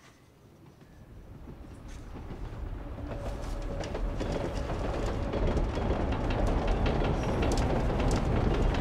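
A low rumble with dense clattering and ticking fades in from near silence and grows steadily louder over about five seconds, then holds.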